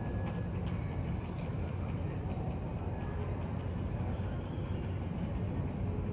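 Steady low rumble of airport ramp noise: idling jet aircraft and ground equipment at a terminal gate.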